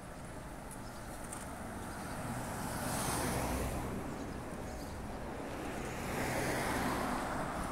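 Two cars passing by on the road, each a swell of engine and tyre noise that rises and fades away, the first peaking about three seconds in and the second about six and a half seconds in.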